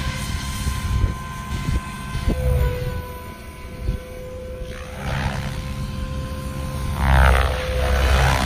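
SAB Goblin Black Thunder radio-controlled helicopter flying aerobatics: its rotor blades whooshing over a steady high whine. It gets louder about seven seconds in as it swings by.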